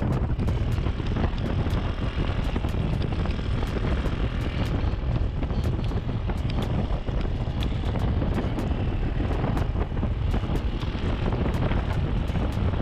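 Motorcycle riding along at steady speed: engine and road rumble under heavy wind buffeting on an action-camera microphone, with frequent small clicks.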